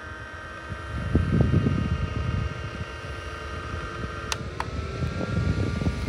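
Mini evaporative air cooler's fan running: a low rush of air that swells about a second in, over a faint steady motor whine. Two clicks about four seconds in, after which the whine rises slightly in pitch.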